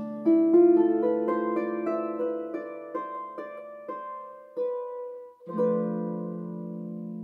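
Wooden lever harp played solo with no singing: a run of single plucked notes that each ring on, then a final chord about five and a half seconds in that rings and slowly fades, closing the song.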